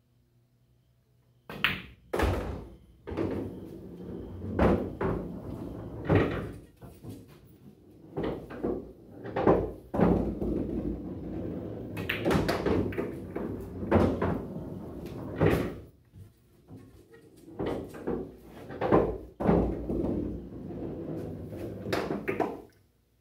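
Pool balls on a coin-operated bar-box pool table over several shots: sharp clicks of the cue striking the cue ball and balls clacking together and off the cushions, with pocketed balls dropping and rolling through the table's ball return. The knocks start suddenly about a second and a half in and come again and again, with stretches of rolling in between.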